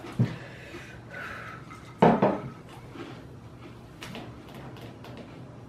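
A few light knocks and handling clatter on a wooden table, the loudest a short knock about two seconds in, with fainter ticks later.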